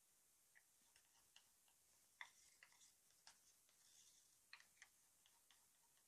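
Near-silent room tone with a dozen or so faint, irregular clicks and ticks: a plastic cup and wooden stir stick knocking lightly against small plastic cups as acrylic paint is poured into them.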